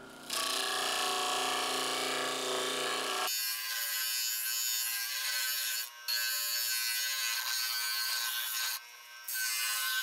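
Bench disc sander running while the end of a pressure-treated pine board is pressed against the disc to round it over: a steady hiss of abrasive on wood. The sound thins out about three seconds in and drops away briefly twice later.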